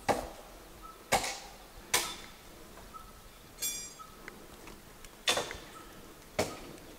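Five sharp knocks at irregular intervals, each dying away quickly, with one brief high ringing note about midway.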